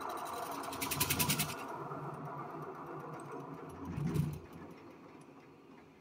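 Nicem cutlery polishing machine running with a steady mechanical hum and a brief burst of rapid rattling about a second in. About four seconds in there is a knock, after which the machine's sound drops away sharply.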